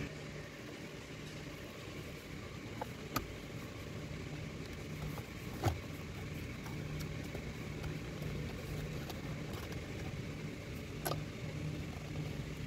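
Low steady hum with four sharp plastic clicks and knocks, the loudest about six seconds in, as the steering wheel's airbag horn pad is unclipped and lifted off.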